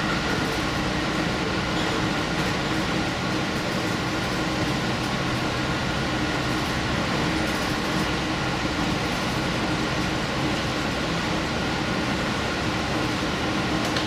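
Limited express train running steadily along the line, heard from the front of the train: an even rolling noise of wheels on rail with a steady hum under it.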